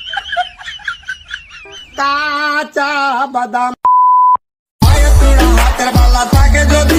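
Edited comedy-video soundtrack: a warbling voice, then a single steady censor-style beep just before four seconds in, a brief silence, and loud music with a heavy beat starting about five seconds in.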